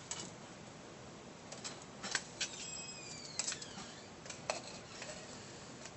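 Small parts being handled on a tabletop: scattered light clicks and taps of laser-cut plywood pieces, metal nuts and washers. About halfway through, a brief high tone slides downward.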